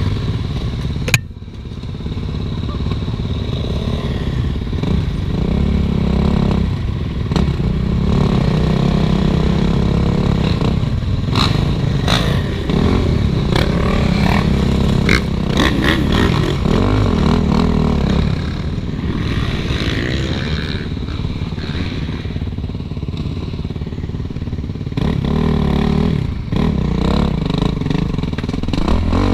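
Suzuki RM-Z450 dirt bike's single-cylinder four-stroke engine running under a rider, the revs rising and falling with the throttle. Clatter and knocks throughout, with a sharp knock about a second in.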